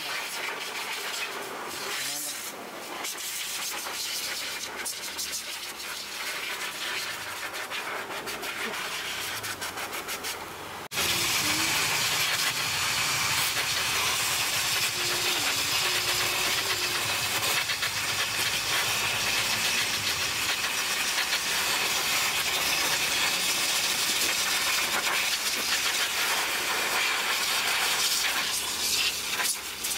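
Blow dryers blowing air over a dog's coat: a steady hiss of rushing air that gets suddenly louder about eleven seconds in, when a larger hose-nozzle dryer is also in use.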